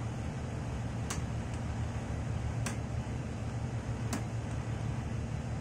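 Three sharp taps of a steel hammer on a metal drift, about one and a half seconds apart, driving a new ball bearing onto a pump shaft, over a steady low machinery hum.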